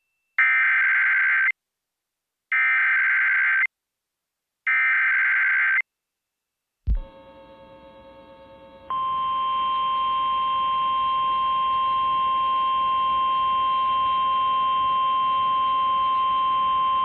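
Emergency Alert System SAME data header: three bursts of warbling data tones about a second each, with short silent gaps between them. After a faint hum, a single steady, high NOAA Weather Radio warning alarm tone starts about nine seconds in and holds. The tone signals that a National Weather Service warning message follows.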